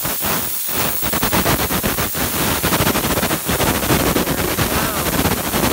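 Compressed air from an air compressor blasting a large paper pinwheel, a loud rushing hiss with a rapid fluttering rattle that starts less than a second in as the pinwheel's paper vanes spin and flap in the blast.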